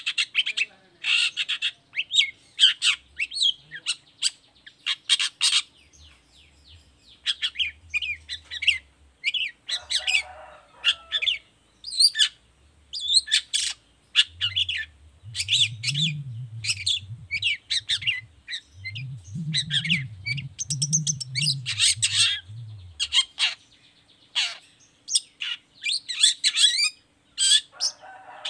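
Long-tailed shrike (cendet) singing actively: quick, irregular runs of short, sharp, high chirps and calls with brief pauses between them.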